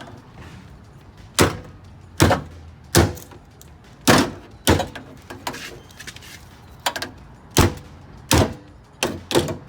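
About ten sharp knocks, unevenly spaced, as the old lock cylinder is struck to drive it out of a 1994 Honda Civic's car door.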